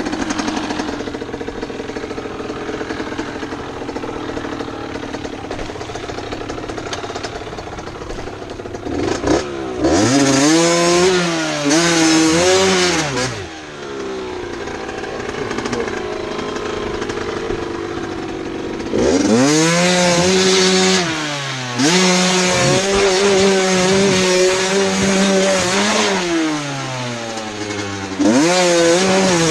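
Enduro dirt-bike engine running at lower revs, then revved hard several times, each time climbing in pitch, holding and dropping back.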